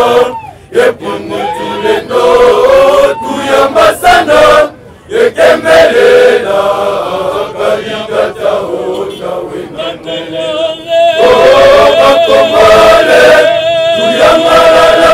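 Church choir of men and boys singing together in a chant-like hymn, with a long held note in the last few seconds.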